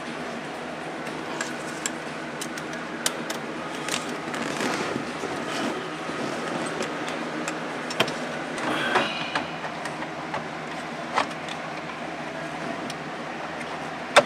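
Hands working inside a car dashboard's glove-box opening: scattered clicks and knocks of plastic and metal parts with bouts of rustling, the sharpest knocks about 8 and 11 seconds in, over a steady low hum.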